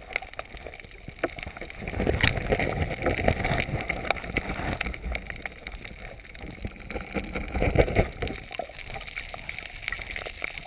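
Water gurgling and sloshing around the camera, with scattered crackling clicks and two longer swells of water noise, the first about two seconds in and the second near the end.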